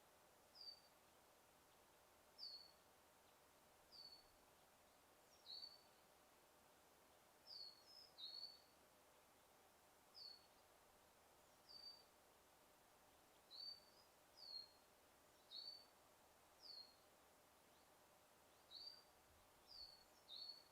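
A songbird calling in a forest: a short chirp that drops quickly in pitch, repeated every second or two, sometimes two close together, over a faint steady hum.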